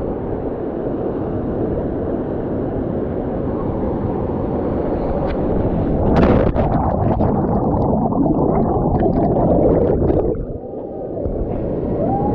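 Steady rush of a waterfall, then about six seconds in a sharp splash as the camera-wearer plunges into the pool. After that come muffled underwater bubbling and gurgling from the camera's microphone underwater.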